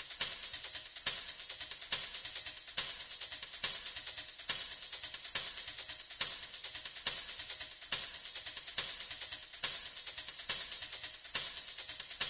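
Background music: a tambourine shaken alone in a steady rhythm, with a strong accent a little under once a second and lighter shakes between.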